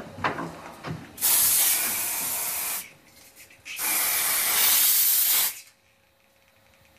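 A few light knocks and clicks, then two long sprays from an aerosol can, each a second and a half or so, with a short pause between them and both cutting off abruptly.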